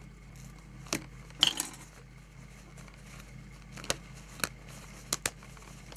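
A few sharp clicks and rustles of a leather jacket and a small hand tool being handled on a sewing-machine table, the loudest about a second and a half in, over a steady low hum.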